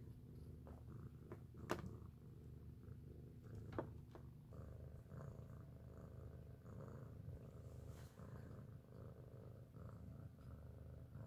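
A cat purring steadily, a quiet low rumble, with two sharp clicks, one about two seconds in and one about four seconds in.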